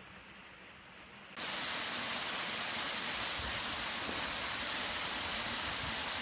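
Steady rushing of running water, cutting in abruptly about a second and a half in after a faint hiss.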